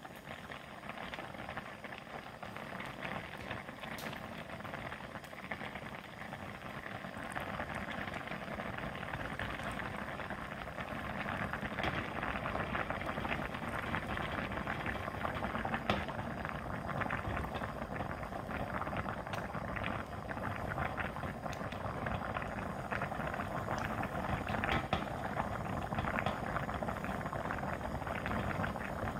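Kimchi stew boiling in a stainless steel pot: steady bubbling and popping that grows a little louder after several seconds, with a few sharp clicks.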